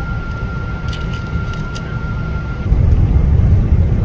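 Steady low rumble of a jet airliner's engines heard from inside the cabin while the plane taxis, with a thin steady high tone over it. About three seconds in the high tone stops suddenly and the rumble becomes louder.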